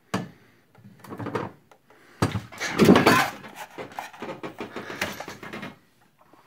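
Handling noise: a sharp knock, then clattering, rubbing and clicks as objects on a desk are moved and handled, loudest in the middle.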